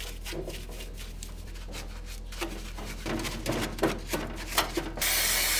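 Stiff brush scrubbing a greasy brake caliper in a parts-washer tank of degreaser: quick, uneven bristle strokes rasping against the metal. About five seconds in, a loud steady spray hiss starts.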